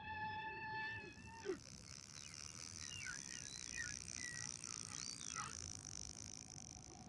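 Recorded whale-song sound effects: a long held moaning tone that slides down about a second and a half in, followed by short, high squeaky calls that rise and fall.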